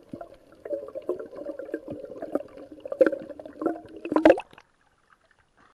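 Muffled underwater sloshing and bubbling picked up by an underwater camera as snorkelers swim close by, with a few louder splashes near the end. It cuts off suddenly.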